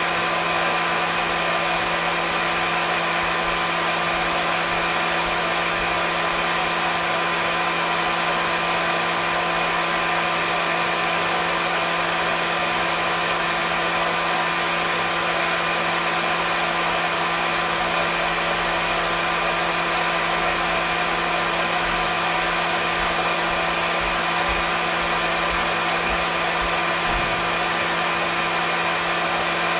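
Hair dryer running continuously at a steady speed: an even rushing of air with a constant motor hum and whine, unchanging throughout.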